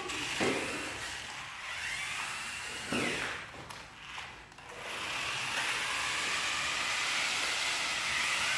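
Small electric motors of toy radio-controlled cars whirring as they drive, with a brief rising whine early on and a steady high whir in the second half; a single knock about three seconds in.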